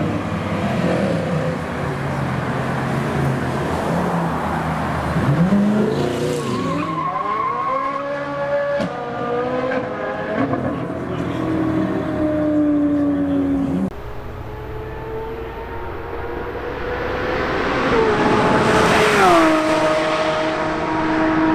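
A Ferrari V8 sports car pulls away hard, its engine note climbing through several quick upshifts, then fading away into the distance. After an abrupt change, another car at speed is heard. Its engine rises and then drops sharply in pitch near the end as it passes.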